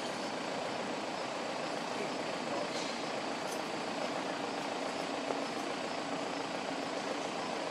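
Steady, even background rumble with a few faint clicks.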